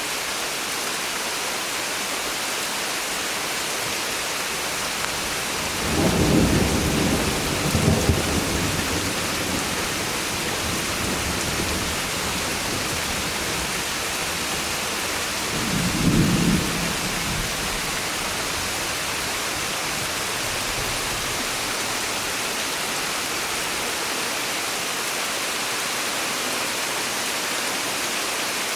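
Steady summer rain falling, with a low rumble of thunder about six seconds in lasting a few seconds and a shorter one about sixteen seconds in.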